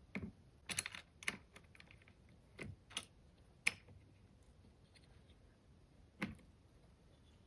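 About seven light, irregular clicks and taps as a square and the jig's carriage accessory are handled and set against each other to check the accessory for square.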